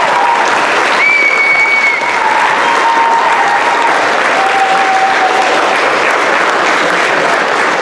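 Theatre audience applauding steadily, with a few drawn-out cheers held over the clapping.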